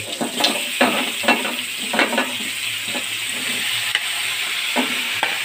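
Raw chicken pieces sliding into hot oil in a wok and sizzling steadily, with a series of knocks and scrapes from the slotted spoon against the plate and pan as the pieces are pushed in, most of them in the first couple of seconds.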